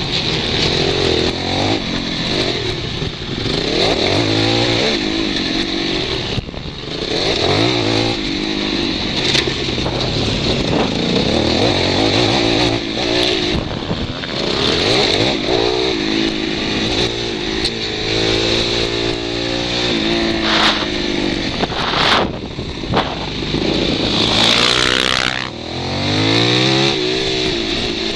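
Supermoto motorcycle engine heard from on board, its revs rising and dropping again and again through a lap, with a steady rush of wind on the microphone and a couple of sharp knocks about two-thirds of the way in.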